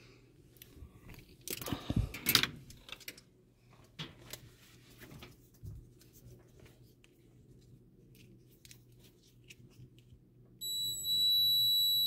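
Digital multimeter in continuity mode giving its steady high-pitched beep as its two test leads are touched together, starting near the end: the continuity tone that signals a closed circuit. Before it, soft rustling and clicks of the leads being handled.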